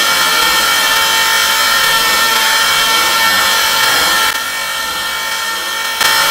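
Long, loud, harsh screaming from Goku's Super Saiyan 3 transformation, layered with extra dubbed-in screaming sound effects. It drops in level about four seconds in, then jumps back up near the end.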